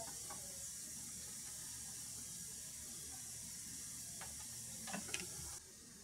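A steady high hiss with a few light clicks about four and five seconds in; the hiss stops suddenly near the end.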